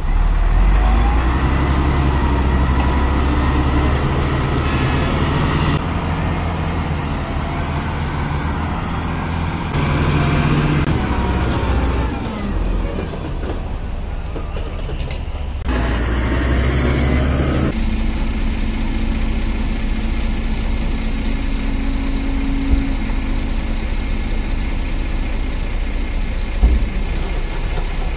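Hydraulic excavator's diesel engine working, its note rising and falling as it takes and sheds load. About two-thirds of the way in it settles to a steadier drone with a thin high whine over it, and two short knocks come near the end.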